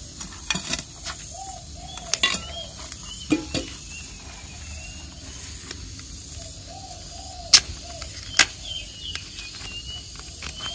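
Scattered crackles and sharp clicks of a thin plastic bottle being squeezed and pried at with a knife to loosen a coconut seedling's soil-bound root ball, with two sharp clicks the loudest, a little past halfway.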